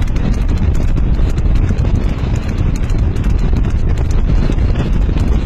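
Horse galloping on asphalt, hooves clattering, over a steady rumble of wind on the microphone.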